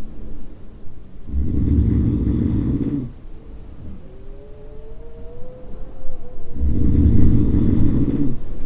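Person snoring: two long, low, rattling snores about five seconds apart, with a faint rising whistle between them.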